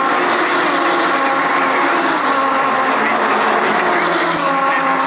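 DTM GT3 race cars at racing speed, several engines running at once with their pitches shifting up and down as they accelerate and lift.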